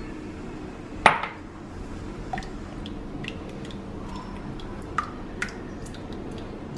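Silicone spatula stirring a creamy mixture in a glass bowl, knocking against the glass several times, most sharply about a second in.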